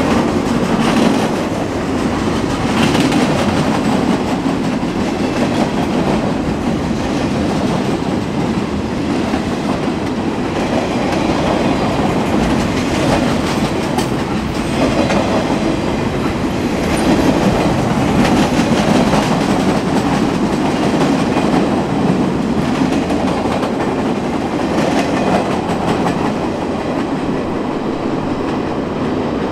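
Empty railroad flatcars rolling past at speed, their steel wheels clicking over the track in a steady, continuous run of rail noise.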